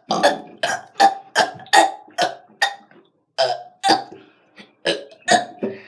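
A person burping over and over in a quick string of short burps, about two or three a second, with a brief pause about halfway through before a few more.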